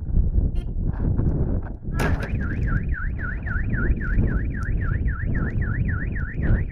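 A car alarm sets off about two seconds in, right after a sudden bang, and warbles up and down about four times a second over a heavy low rumble.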